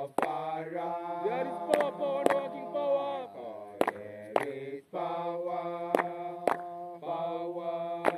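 Voices chanting a Rastafari hymn in long held notes that slide between pitches, over a steady low hum. Sharp beats come in pairs, the two about half a second apart, repeating about every two seconds.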